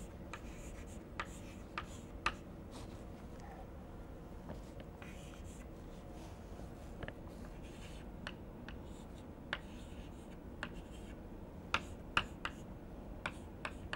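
Chalk tapping and scratching on a blackboard as numbers are written: scattered short, sharp ticks, bunched more closely near the end, over a faint steady hum.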